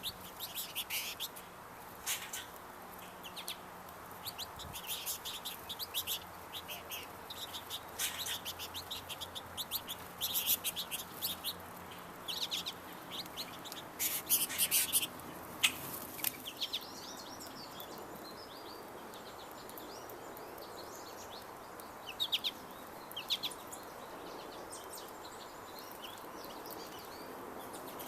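Many small birds chirping and calling in quick, overlapping bursts, busiest through the first half and thinning out later, with a few sharp clicks in between.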